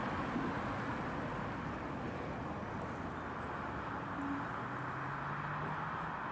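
Steady rush of road traffic and tyre noise, with a faint low engine hum joining about two-thirds of the way through.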